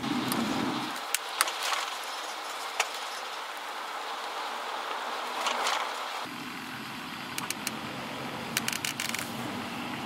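Steady hiss of traffic on a snowy, slushy freeway, with scattered faint ticks.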